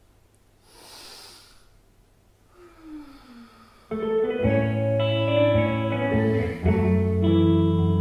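Quiet stage for about four seconds with a soft swish, then guitar-led music starts suddenly: sustained chords over a steady bass.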